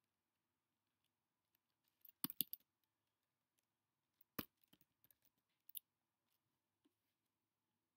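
Typing on a computer keyboard: faint key clicks in short bursts, a quick cluster about two seconds in, a sharper single click a little past four seconds, then a few lighter scattered taps.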